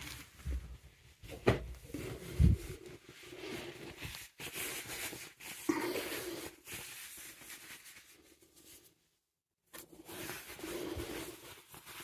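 Cushions and bedding being handled: soft fabric rustling, with two sharp thumps about a second apart near the start as the cushions are moved. The sound cuts out completely for a moment about three quarters of the way through.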